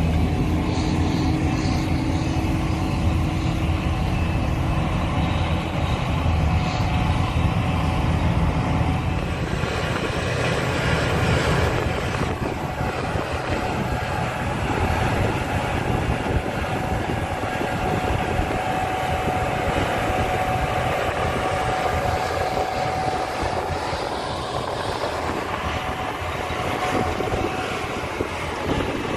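Gleaner S98 combine harvester running steadily with its engine and threshing machinery while cutting wheat, a steady low rumble with a faint whine.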